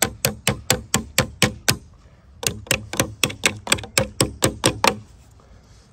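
Quick, light hammer taps, about four a second, driving steel spade drill bits in as wedges beside a PVC pole set in a wooden block to steady it. Two runs of taps with a short pause about two seconds in, and the tapping stops about a second before the end.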